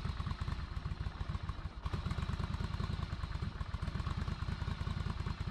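Yamaha Virago XV1100's air-cooled V-twin idling steadily, a rapid even low pulsing.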